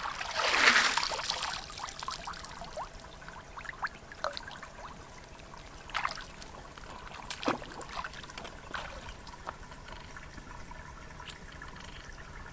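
Water pouring and splashing as a basket is rinsed and lifted in shallow river water, then a few scattered splashes of wading steps over a faint trickle of the stream.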